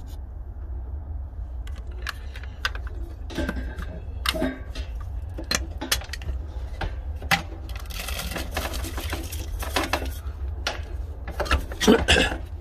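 Ground peanuts being emptied out of a food grinder's bowl: irregular knocks, taps and scraping of the container. There is a longer rattling, pouring stretch about eight seconds in and a louder cluster of knocks near the end, over a steady low hum.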